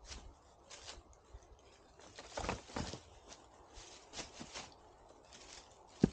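Footsteps shuffling and crunching in deep dry leaves over loose stones, with a large rock being shifted about; a sharp knock right at the end.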